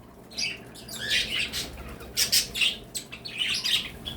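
A mixed flock of small pet birds chirping and squawking, with many short calls overlapping one another.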